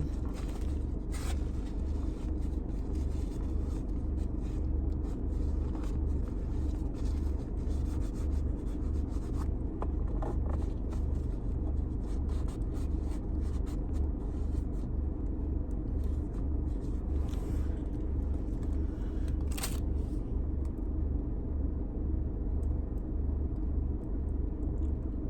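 A steady low rumble with faint scattered clicks and scrapes.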